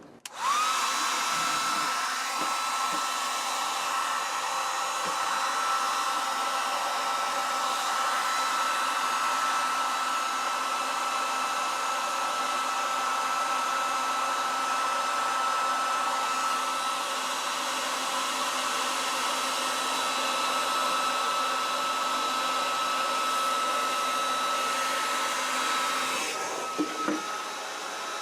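A hot-air blower switches on and runs steadily to heat and shrink heat-shrink tubing: an even airy hiss with a steady whine. The whine rises briefly in pitch as the motor spins up at the start. Near the end the hiss eases slightly and there is a short click.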